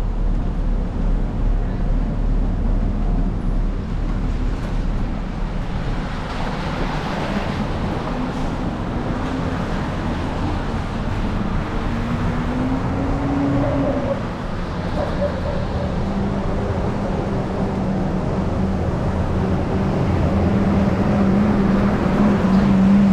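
Downtown city street traffic: vehicles passing and engines running in a continuous rumble, with a steady engine hum that grows louder near the end.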